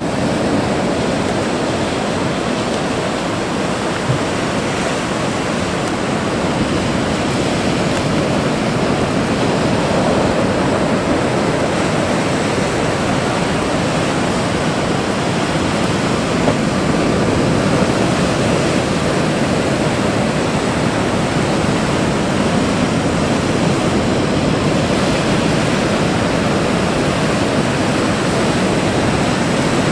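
Heavy ocean surf breaking continuously over rocks and around a sailboat: a steady, dense rush of churning water.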